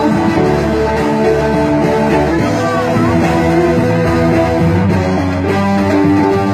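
Live band playing a rock song, amplified through PA speakers.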